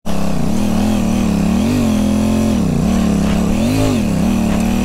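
Royal Enfield Interceptor 650's parallel-twin engine running under way on a rough mountain track, its pitch rising and falling over and over with the throttle.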